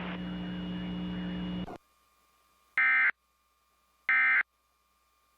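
A steady low hum that cuts off suddenly, then two short bursts of digital data warble about a second and a half apart. These are the Emergency Alert System end-of-message (EOM) codes that close the test.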